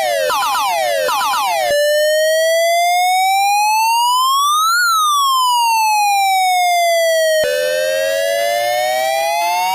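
Argentine police siren cycling through its tones: quick falling yelps for about a second and a half, then one slow wail rising and falling, then, near the end, a switch to a harsher, buzzier tone starting another slow rise.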